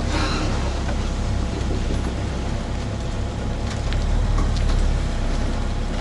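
Volvo EW60E wheeled excavator's diesel engine running steadily, heard from inside the cab, with a few light clicks about four seconds in.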